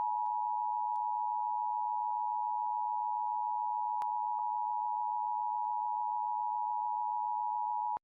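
Emergency Alert System attention signal: the steady two-tone alert held unchanged for about eight seconds, then cut off abruptly.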